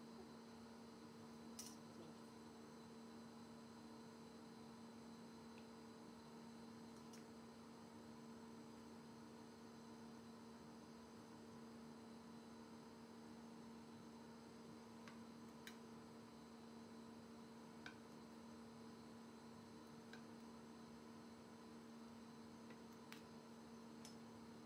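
Near silence with a steady electrical hum and a few faint, scattered clicks.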